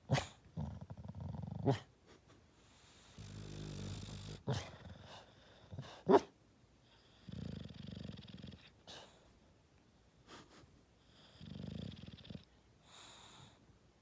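A sleeping bulldog snoring in low, rasping breaths every couple of seconds. A few short, sharp huffs stand out as the loudest sounds in the first half.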